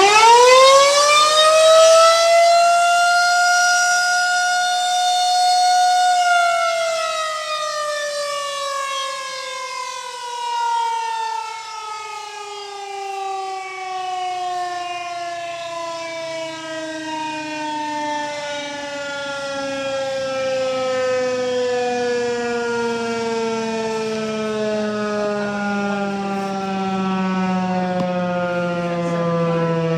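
Federal Signal 2001-130 rotating electromechanical tornado siren sounding a test: it winds up fast to a steady wail and holds it for about five seconds. After that it is switched off and winds down slowly, the pitch falling steadily and the loudness wavering.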